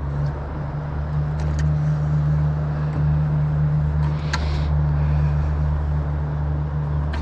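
Steady low outdoor rumble with a hiss over it, and a few light clicks and a short hissing sound about four seconds in.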